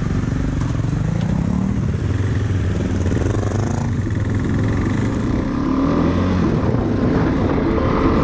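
KTM 390 Adventure's single-cylinder engine pulling away from a stop, rising in pitch through the first gear, dropping at a gear change about two seconds in, then climbing again through the next gear.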